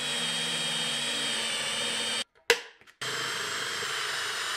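Power drill running steadily as its twist bit bores through aluminum flat bar. The sound cuts out for under a second a little past halfway, with one click in the gap, then the drilling resumes.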